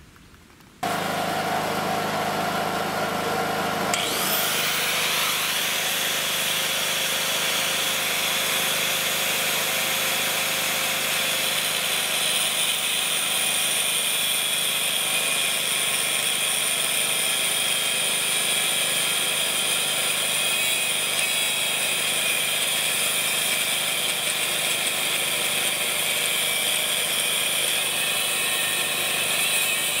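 Handheld angle grinder cutting through a metal bracket. It starts about a second in, and from about four seconds on the disc bites into the metal with a steady high-pitched grinding.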